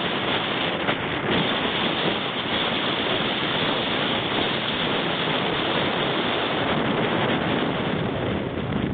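Steady rushing noise of wind and surf on an open sea shore, with wind buffeting the microphone.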